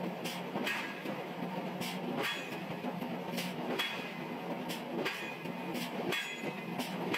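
Heavy forging machinery running: a steady low hum under irregular metallic clanks and knocks, one or two a second, some followed by a brief ringing of struck steel.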